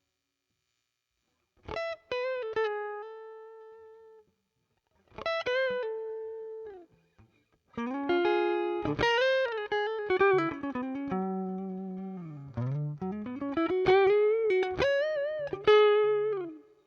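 Electric guitar played through a Zoom G2 Four's Fender Deluxe Reverb amp simulation in a fairly clean tone: single-note lead phrases with string bends and vibrato. The notes start after about a second and a half of silence, come in short phrases at first, then run on as one longer line.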